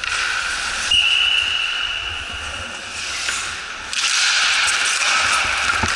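Ice rink game noise: hiss-like skating and arena sound, with a steady high tone lasting about two seconds starting about a second in, and the noise growing louder from about four seconds in.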